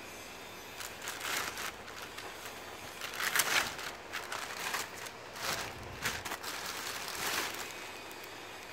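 Thin plastic bag crinkling and rustling in irregular bursts as a hand shifts plastic-wrapped packs of toilet rolls inside it, loudest about three and a half seconds in.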